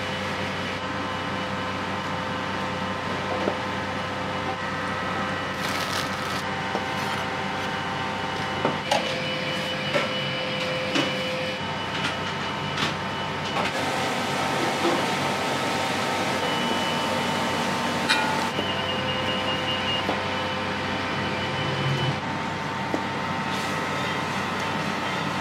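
Busy Chinese restaurant kitchen: a steady roar from the wok range and extractor hood, carrying several steady hums, with scattered sharp clanks of metal utensils.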